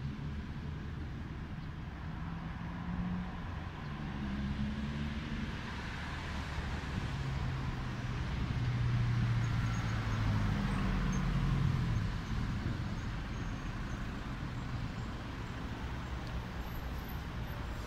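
Road traffic on a busy multi-lane road: cars and a truck driving past, with a low engine hum and tyre hiss. It grows louder for a few seconds in the middle, then settles back.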